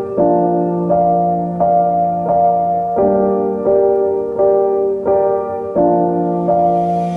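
Background music: a gentle piano melody, with a new note or chord about every three-quarters of a second.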